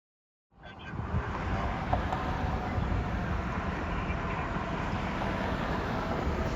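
Steady low rumble of a running vehicle engine with road noise. It fades in over the first second after a brief silence.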